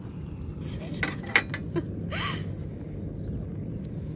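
A few sharp clinks and clicks of utensils being handled, the loudest a little over a second in, over a steady low rumble.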